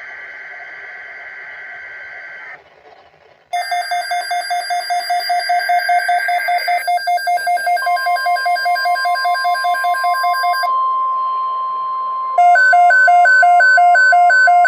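NOAA Weather Radio alert coming through weather radio receivers. It opens with bursts of SAME header data tones, and a receiver's rapid beeping alarm starts with the second burst. About eight seconds in, the steady 1050 Hz warning tone begins, and near the end a louder rapid beeping alarm from a second radio joins it.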